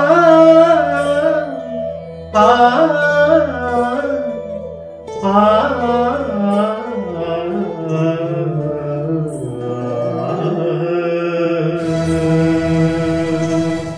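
Wordless Carnatic-style vocal alaap: long melodic phrases with bending, ornamented pitch over a steady drone. A bright shimmering sound joins about two seconds before the end.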